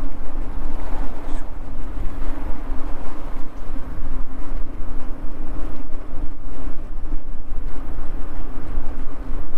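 Wind rumbling over an action camera's microphone while riding an Eahora AM100 electric mountain bike, with one steady hum from the bike underneath.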